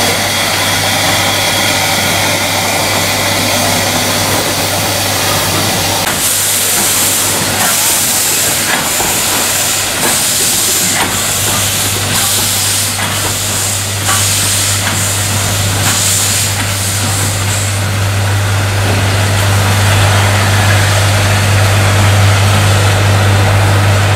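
Stephenson-built 0-6-0 steam locomotive working slowly while shunting: hissing exhaust chuffs about one a second, from about six seconds in until they die away about two-thirds of the way through, over a steady low hum.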